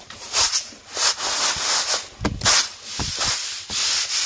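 Black gram grains rubbed and swept by hand across a woven bamboo winnowing tray, a dry rustling scrape in repeated strokes.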